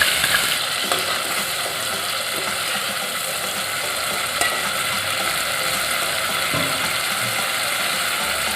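Ground spice paste frying in hot oil with onion in a cooking pot: a steady, crackling sizzle with a few faint clicks.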